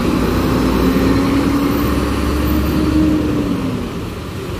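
Mercedes-Benz coach's diesel engine pulling away uphill, a low rumble whose pitch climbs steadily, then fades about four seconds in.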